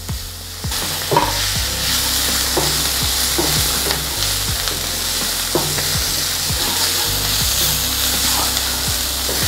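Chopped onions, green chillies, ginger and garlic sizzling in oil in a stainless steel frying pan as they are sautéed toward browning, stirred with a wooden spatula that scrapes across the pan about once a second. The sizzle grows louder a little under a second in.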